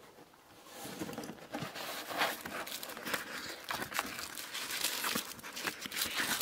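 Paper photographs and papers being handled and shuffled: irregular rustling and crinkling with many small sharp clicks, starting about a second in.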